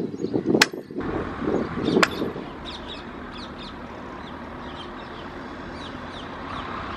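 Birds chirping again and again over the low, steady rumble of a distant diesel locomotive. In the first two seconds the rumble is louder, with two sharp clicks, one about half a second in and one about two seconds in.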